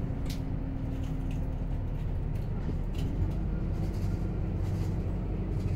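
Interior running noise of a moving double-decker bus, heard from the upper deck: a steady low drone from the drivetrain and road. A hum in it steps up slightly in pitch about three seconds in, and light rattles and clicks come through.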